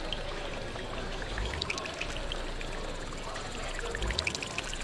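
Electroacoustic montage built from processed night-time field recordings: a dense noisy texture dotted with many short, high pitched blips, with low thumps about a second and a half in and again near the end.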